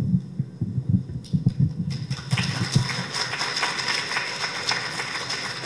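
Low thumps of a handheld microphone being handled. About two seconds in, audience applause starts, a dense patter of claps.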